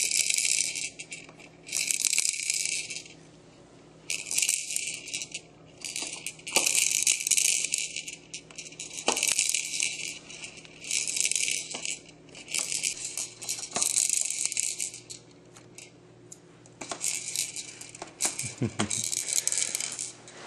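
Rattling toys on a baby jumper's activity tray, played with in a run of repeated bursts about a second long, with a few light clicks in between.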